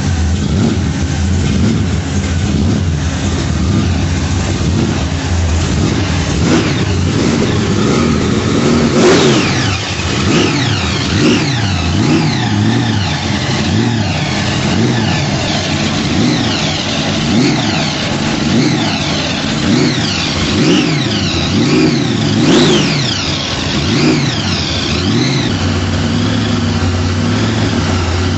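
Supercharged V8 of a first-generation Chevrolet Camaro running and being revved over and over in quick blips. A high whine rises and falls with each rev. The two sharpest revs come about nine and twenty-two seconds in.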